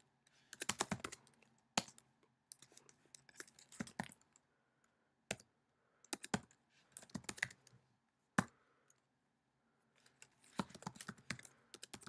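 Computer keyboard typing in short runs of keystrokes separated by brief pauses.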